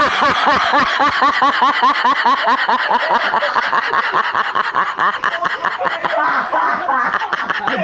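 Continuous rapid laughter, an unbroken run of quick 'ha-ha-ha' pulses at about five a second, held for several seconds without a pause for breath.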